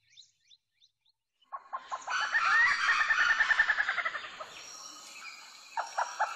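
Forest bird calling: after a quiet start with a few faint high chirps, a loud rapid run of clipped, fowl-like notes begins about a second and a half in, rises in pitch, then fades, and a second run starts near the end.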